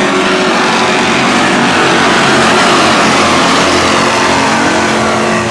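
A pack of short-track stock cars racing at full throttle, many engines running together. It swells to loudest about halfway through as the field passes.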